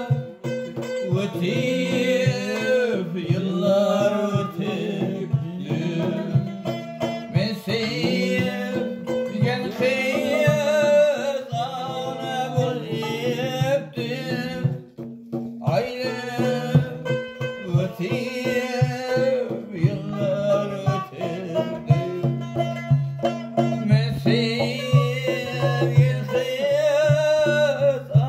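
A man sings a folk song to his own long-necked plucked lute, with a hand-beaten frame drum keeping a fast, steady rhythm.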